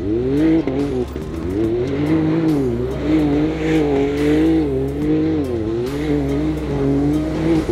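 Off-road buggy engine revving hard while the buggy slides in circles on loose gravel. The engine's pitch keeps rising and falling in waves.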